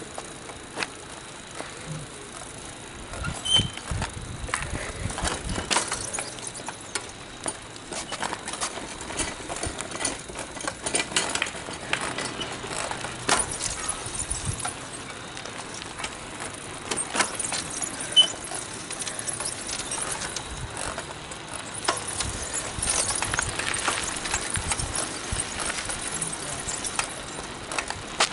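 Pedal go-kart and bicycle rolling on pavement: irregular rattling, clicks and knocks, with a couple of brief high squeaks.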